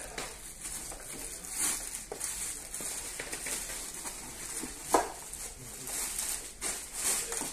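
Clear plastic wrapping rustling and crinkling as it is pulled off a stainless-steel citrus juicer, with scattered small crackles and one sharper crackle about five seconds in.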